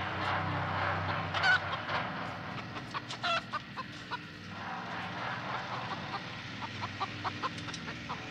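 A chicken squawking and clucking, with two loud squawks about a second and a half and three seconds in and quicker, shorter clucks later, over a low steady drone.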